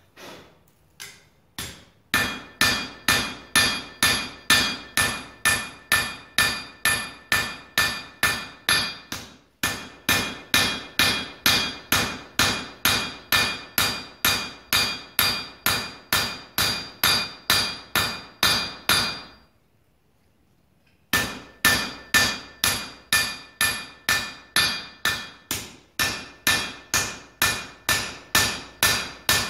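Blacksmith's hand hammer forging red-hot iron on an anvil: a few light taps, then a steady run of ringing blows at about two to three a second. The blows stop for a moment about twenty seconds in, then start again.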